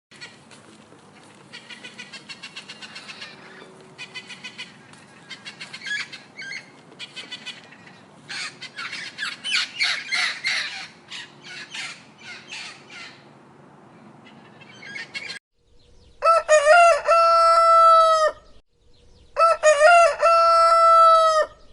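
Chickens clucking in quick runs of short calls, then a rooster crowing twice, each crow long and held at a steady pitch.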